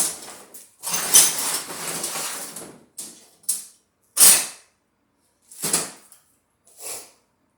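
Handling and scraping noises from work on a cast-iron engine block: one long scrape of about two seconds, then four short ones.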